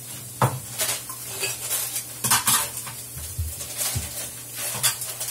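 Kitchen clatter: several separate clinks and knocks of containers and utensils being handled at the counter, over the faint sizzle of onions frying in a pan.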